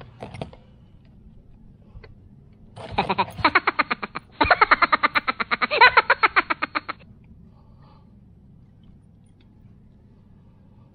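A comedic sound effect laid over the video: a rapid pulsing, pitched sound at about eight pulses a second, starting about three seconds in and lasting about four seconds with a brief break partway. It marks a "palpak" (flop) moment.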